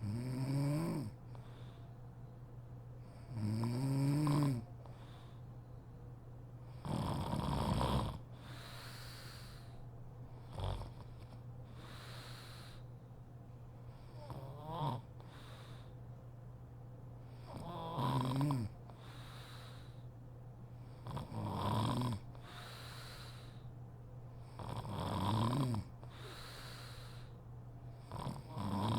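A woman snoring in deep sleep: a snore about every three to four seconds, each lasting about a second, some stronger and longer than others.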